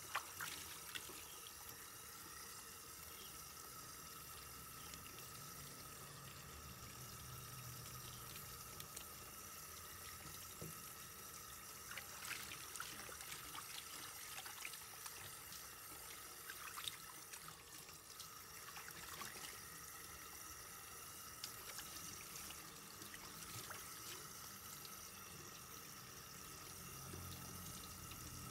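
Tap water running steadily into a metal bowl in a stainless steel kitchen sink, with a few faint knocks scattered through.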